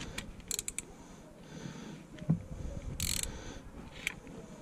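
Ratchet and socket clicking against metal while nuts are run down onto ARP head studs on a 6.7 Cummins cylinder head: a few sharp clicks about half a second in, a short rasp about three seconds in, and another click near the end.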